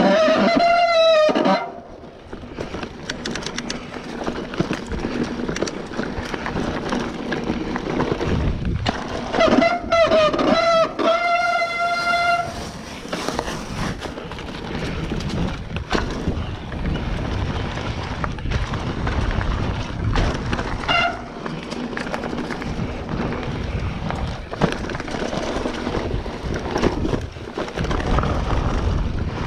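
Mountain bike rolling fast down a rough dirt trail: steady tyre and wind noise with the bike rattling over bumps. The brakes squeal in high, wavering tones as they are applied, once at the start, again for about three seconds in the middle, and briefly later on.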